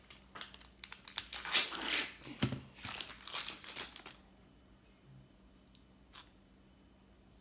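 Thin plastic wrapper crinkling and tearing as a stick of cheese is unwrapped by hand, for about four seconds, then it goes quiet apart from one faint click.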